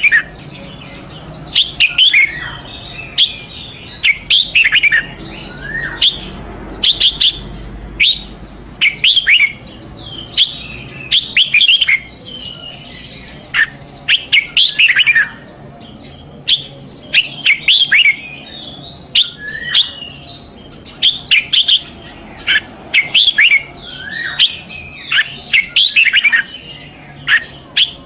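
Red-whiskered bulbul singing loudly: short, quick phrases of sharp, chirping notes repeated in clusters every second or so.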